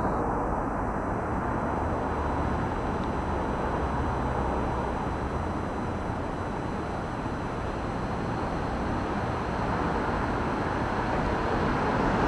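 Steady urban background noise: an even low rumble with no distinct events.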